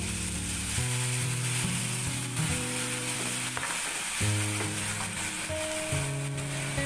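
Green beans and leeks sizzling steadily in a hot frying pan as a dark sauce is poured in, with soft background music.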